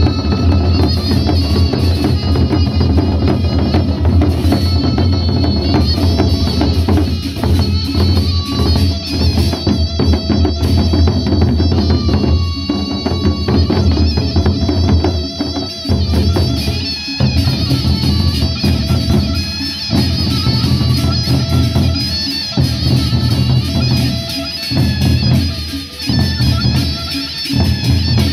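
Sasak gendang beleq ensemble playing: large double-headed barrel drums beaten with sticks in a dense, driving rhythm under steady ringing metallic tones.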